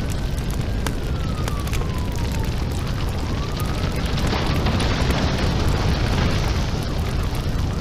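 Sound effect of a large house fire burning: a dense rushing noise over a heavy low rumble, with constant crackling and pops. A faint wailing tone rises and falls in the first few seconds, and a brighter surge of hiss swells from about four seconds in to about six and a half.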